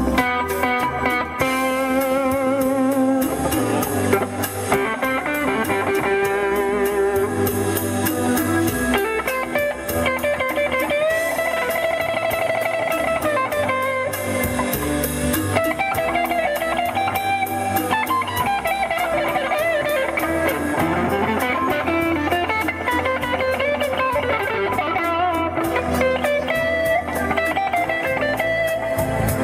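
Electric guitar played live through the speakers of a custom car's trunk sound system: a lead line of single notes, many of them bent and wavering in pitch.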